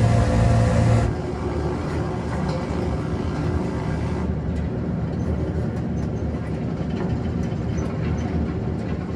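Film soundtrack of a WWII bomber's engines droning, played back through a home-theatre system with a subwoofer. A louder drone with a strong low hum drops off abruptly about a second in to a steadier, quieter rumble.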